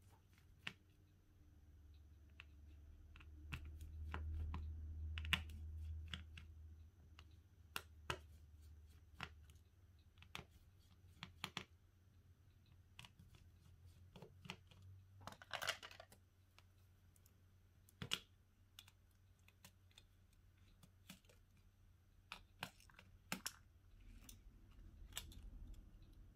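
Irregular small clicks and taps from a smartphone being handled with small repair tools, with a short scraping rustle about sixteen seconds in.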